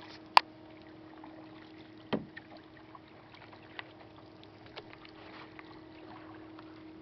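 Canoe being paddled, with a faint hiss of water and wind and small ticks. A sharp knock comes about half a second in and a duller knock just after two seconds, typical of a paddle striking the canoe's hull.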